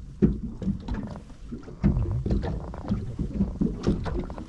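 Small waves slapping and lapping against the hull of a boat on the water, making irregular low knocks.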